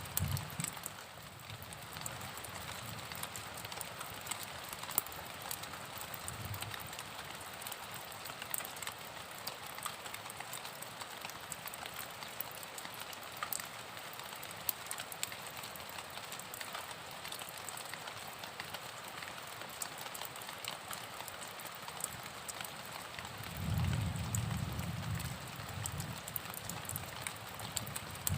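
Steady rain falling, with many small drop hits on a surface. A low rumble comes in for a couple of seconds near the end.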